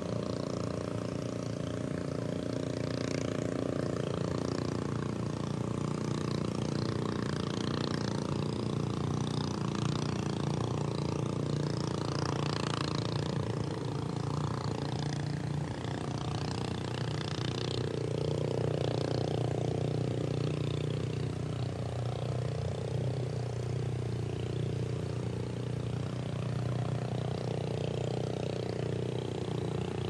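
Small fishing boat's engine running steadily, a low drone whose pitch swells up and down slowly in the second half, over a hiss of sea water lapping.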